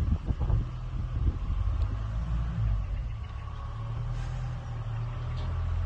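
A van's engine running at low speed, a steady low drone, with a few thumps in the first second or so.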